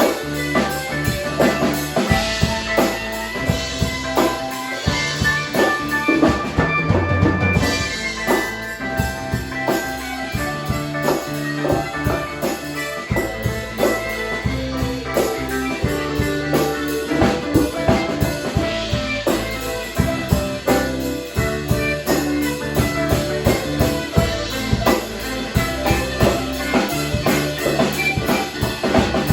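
Background music with a drum-kit beat and a bass line.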